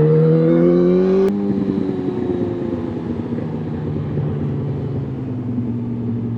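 Motorcycle engine accelerating, its note rising, then a gear change about a second in, with a click, that drops the revs. It then runs on at lower revs, the note slowly falling.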